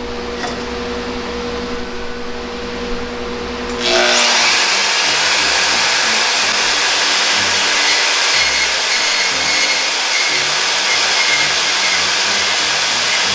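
Portable band saw running with a steady hum, then about four seconds in the blade bites into a thick aluminum pipe and a loud, steady cutting noise takes over.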